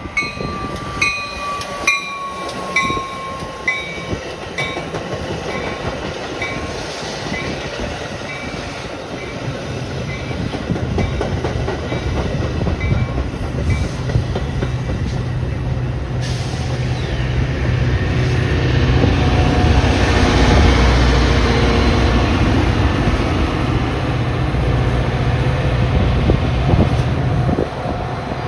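Metra diesel commuter train moving through the station: a bell dings over and over for the first several seconds and fades out, then the locomotive's low engine rumble and the rattle of wheels on the rails build up, loudest in the second half, and drop off shortly before the end.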